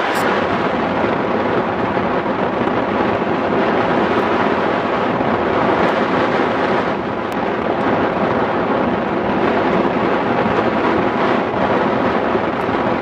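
Steady, loud rush of wind buffeting a camera microphone mounted on a hang glider in flight.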